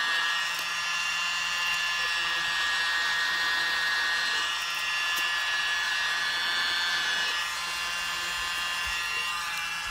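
Hand-held electric air blower running with a steady whine and rush of air, blowing wet acrylic paint outward into a bloom on a canvas. It switches off at the very end and the whine falls as the motor spins down.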